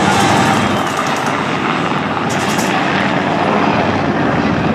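Bell Huey military helicopter flying low past, its main rotor beating in a steady rapid chop over the engine noise.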